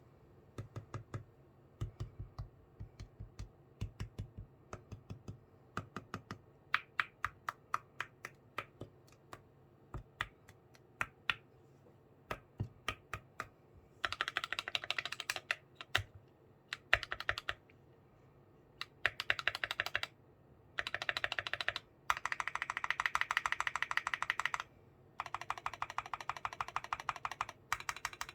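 Keychron Q1 Knob aluminium mechanical keyboard with self-lubricated Gateron black switches and a mix of PBT and stock Keychron keycaps being typed on. Separate slow keystrokes at first, then from about halfway fast typing in bursts of a few seconds with short pauses.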